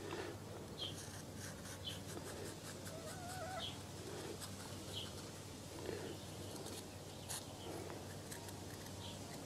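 Faint clucking calls of farmyard fowl, about one a second, with one longer wavering call. Light taps of a felt-tip marker can be heard as it dots a line onto the sawn end grain of the wood.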